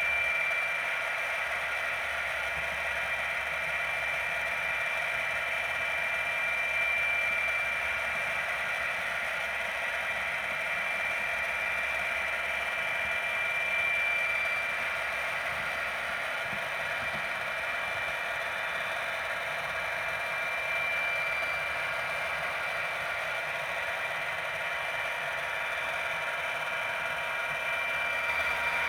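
Model railway locomotive running on the layout: a steady mechanical whir with a constant high-pitched whine over it.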